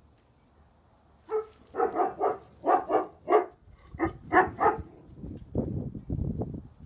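A dog barking: a rapid series of about ten barks starting about a second in, followed by a lower, rough noise for the last couple of seconds.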